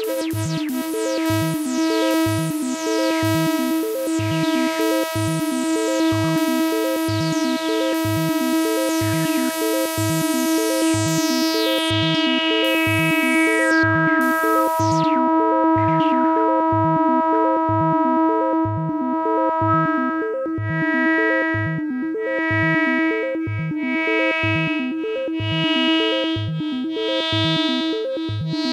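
Yamaha CS-30 analog synthesizer: a held, bright pitched drone over a steady low pulse about twice a second. Falling sweeps zip down through the first half. Later the tone swells brighter and fades back in a slow rhythm.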